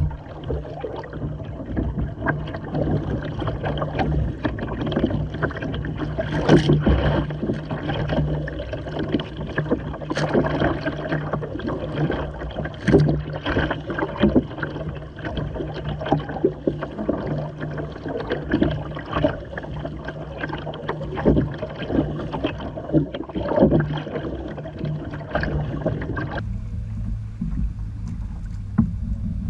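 Water sloshing and slapping against the hull of a Hobie sailing kayak under way through chop, with many sharp splashes over a steady low rumble. About three seconds before the end the sound turns suddenly duller and lower.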